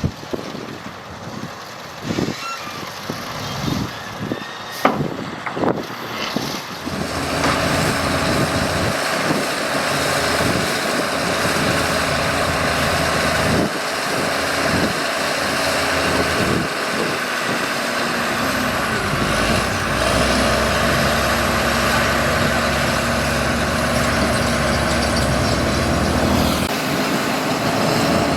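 Bulldozer's diesel engine working, with several sharp metallic clanks in the first few seconds. From about seven seconds in, the engine runs louder and steadily, as if under load.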